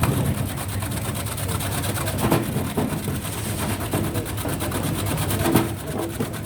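Porang (konjac) slicing machine running steadily, with a rapid, even ticking and a few louder knocks.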